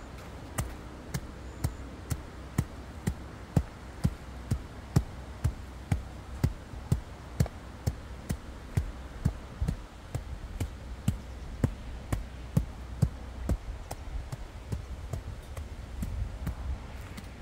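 A long run of sharp, evenly spaced knocks, about two a second, growing weaker and less distinct near the end.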